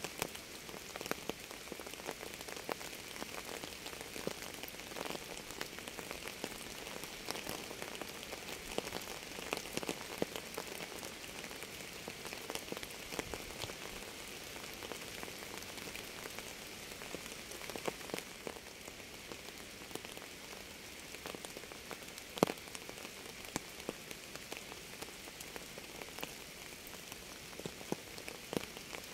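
Steady rain with many separate drops ticking sharply, one drop hit standing out louder about three-quarters of the way through.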